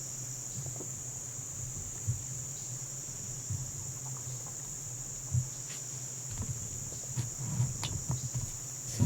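Steady chorus of insects, a constant high-pitched drone, with scattered faint clicks and taps over it, the loudest about five seconds in.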